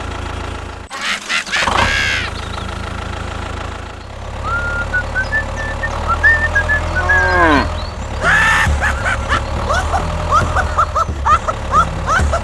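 Steady low tractor-engine hum that cuts out briefly about a second in and then resumes. Animal calls and quick high chirps, rising in pitch, are layered over it through the second half.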